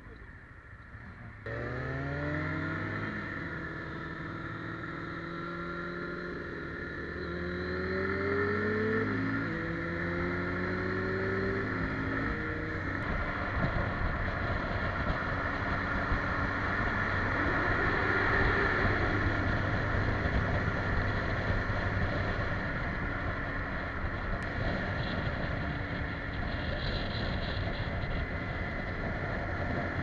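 Motorcycle engine heard from on the bike, accelerating through the gears. Its pitch climbs and falls back at each upshift, twice in the first dozen seconds. It then runs steadily at highway speed under a growing rush of wind.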